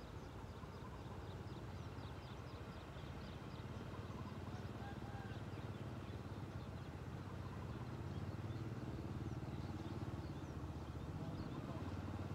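Low engine rumble of a passing vehicle, slowly growing louder, with birds chirping in short high notes.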